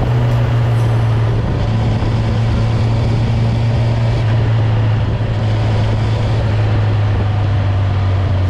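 Honda CB1000R inline-four running through a G&G exhaust with the baffle in, its note held at steady revs under way.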